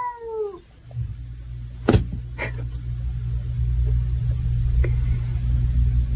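A cat's meow, falling in pitch, trails off in the first half second. Then a low steady rumble runs on, with a sharp click about two seconds in.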